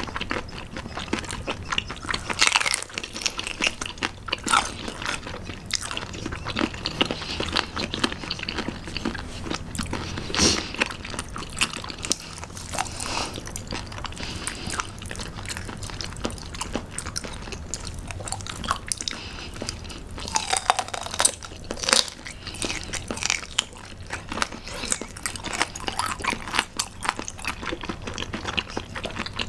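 Close-miked chewing of bone-in raw gizzard shad sashimi: crisp crunches of the small bones and wet mouth sounds, with a few louder bites.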